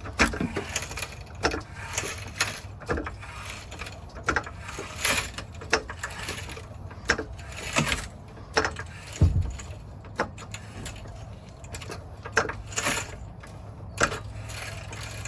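Irregular metallic clicks, clinks and knocks of hand tools and metal parts being handled, with a dull thump about nine seconds in, over a steady low hum.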